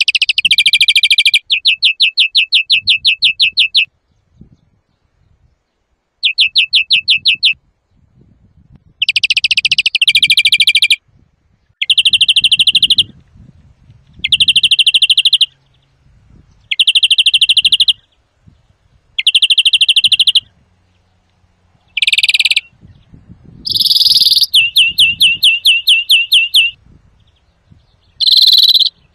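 European greenfinch singing loudly: phrase after phrase of fast, evenly repeated trilled notes, each phrase one to two seconds long, with short pauses between them.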